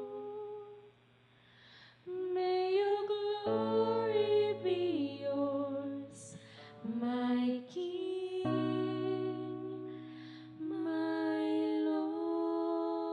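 Two women singing a slow worship song together with acoustic guitar accompaniment. The music fades almost to nothing about a second in, then the voices come back in on sustained notes.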